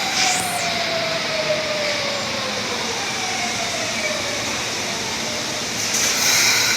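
Osaka Metro Tanimachi Line 22-series subway train running over the rails, its traction-motor whine falling steadily in pitch as it slows. A brief burst of hiss comes near the end.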